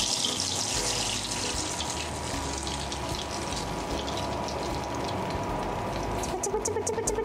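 Beaten egg batter sizzling and bubbling in a pan of hot deep-frying oil, loudest just after the batter goes in and easing off. Near the end a fast, even ticking and a held tone come in.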